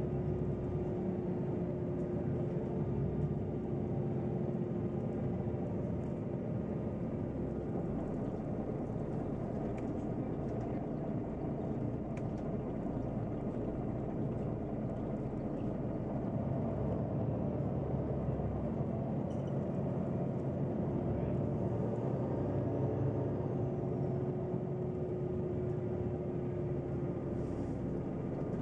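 Neoplan N 4416 Centroliner city bus heard from inside while driving: a steady engine and road rumble. A constant whine sits on top of it, drops out for several seconds around the middle, then returns.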